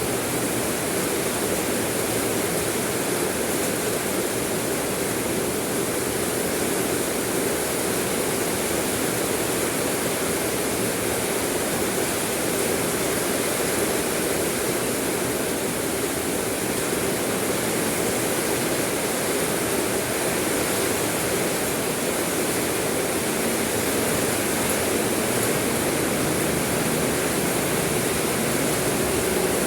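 Steady rain: an even, unbroken hiss that holds at the same level throughout.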